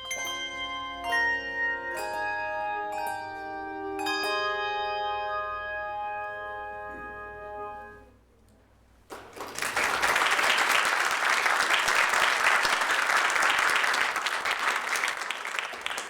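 Tuned bells ringing the closing notes of a piece, several struck notes and chords that ring on and die away about eight seconds in. After a short pause an audience applauds, louder than the bells.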